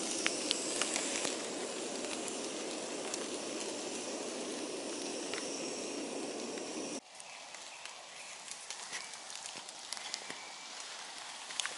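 Campfire of soaking-wet wood hissing steadily, with scattered sharp crackles. About seven seconds in the sound drops suddenly to a quieter hiss with sparser crackles and ticks.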